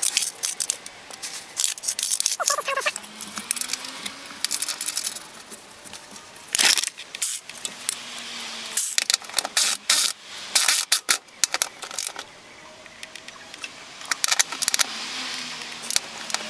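Tools and metal car parts clinking and rattling irregularly as they are handled, with clusters of sharp clicks about 7 and 10 to 11 seconds in.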